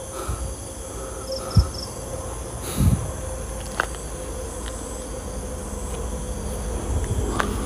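Night insect chorus, mainly crickets, trilling steadily at a high pitch, with a couple of dull thumps and a few sharp clicks over it.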